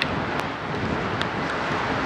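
TEP70 diesel locomotive's engine running steadily as it hauls its train past, under heavy wind noise on the microphone.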